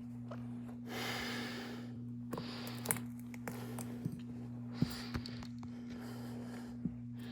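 Several breaths close to the microphone, each a soft hiss of half a second to a second, with a handful of small sharp clicks from tools working on the tiny parts of a phone camera module, over a steady electrical hum.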